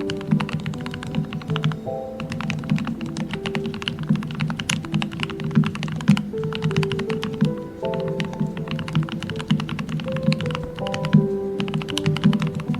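Fast typing on a modded Royal Kludge RK68 mechanical keyboard: a dense run of deep, thocky keystrokes with a few brief pauses. Soft background music with a melody plays underneath.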